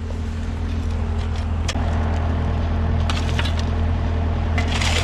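Diesel engine of a concrete mixer truck running steadily during a concrete pour, with a few light knocks and scrapes over it and a rougher, noisier patch near the end.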